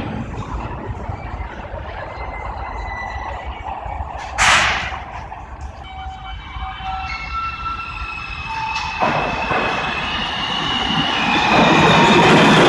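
New York City subway train pulling into the station: a low rumble throughout, a short sharp burst of noise about four seconds in, then high steady wheel squeal from about six seconds that grows louder as the train comes in near the end.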